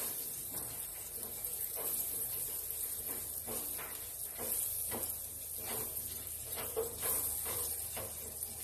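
Butter sizzling faintly in a preheated grill pan, a steady high hiss, while a silicone basting brush is swept across the pan's ridges in soft strokes about once a second.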